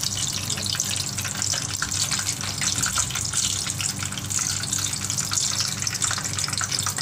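Battered shrimp deep-frying in hot oil: a steady sizzle with dense crackling, over a low steady hum.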